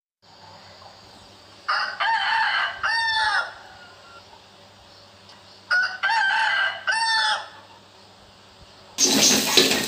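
A rooster crowing twice, two separate cock-a-doodle-doos each about a second and a half long, with a few seconds between them. About nine seconds in, a loud sizzle of food frying in a wok cuts in abruptly.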